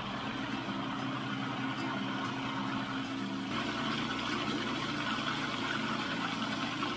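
Countertop food processor motor running steadily, pureeing cooked pumpkin flesh into a smooth puree.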